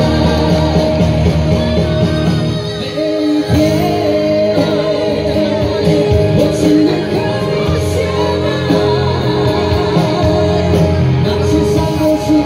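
Live pop duet: a male and a female singer singing into microphones over an amplified band, heard through the concert PA.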